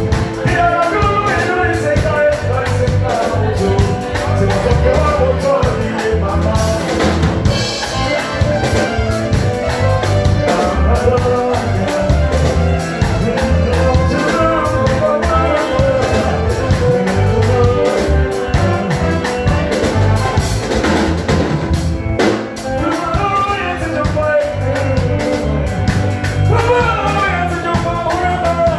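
Music: a song with singing over a drum kit and a steady beat.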